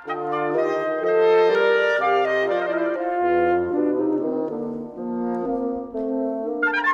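Wind quintet of flute, oboe, clarinet, French horn and bassoon playing a lively Allegro. The instruments hold sustained chords over a moving low bassoon line, then break into quick, short notes near the end.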